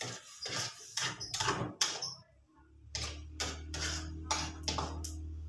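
Metal spatula scraping and knocking against a wok during stir-frying, a quick series of a dozen or so strokes. About halfway through, a low steady hum starts underneath.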